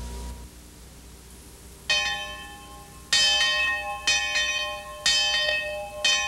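A single church bell tolling, struck five times about a second apart from about two seconds in, each stroke ringing out and dying away.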